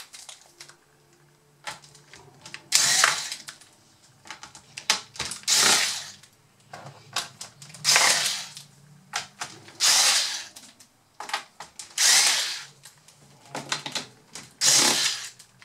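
Electric screwdriver running in six short bursts, about two seconds apart, backing screws out of the plastic bottom case of a Dell Inspiron 15 3558 laptop. Small clicks and taps come between the bursts.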